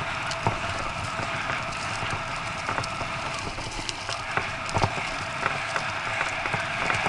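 A bike rolling fast over a dirt trail covered in dry leaves: a steady rushing noise of tyres on the ground, full of small irregular clicks, with a few louder knocks and rattles from the bike over bumps.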